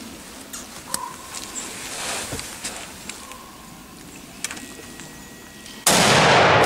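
A hunting rifle shot about six seconds in, sudden and loud, followed by a long fading echo through the woods. Before it there is only faint rustling with a few light clicks.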